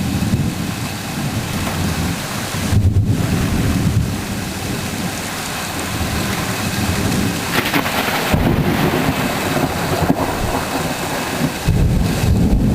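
Thunderstorm: steady rain with low rolls of thunder that swell and fade several times.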